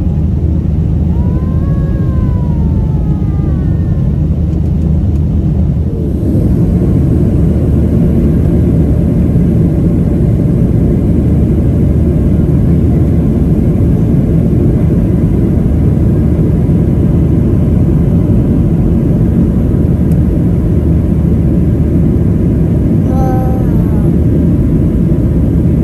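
Airliner engines and airflow making a loud, steady rumble, heard from inside the cabin, which grows a little louder about six seconds in. Brief sliding high sounds come about a second in and again near the end.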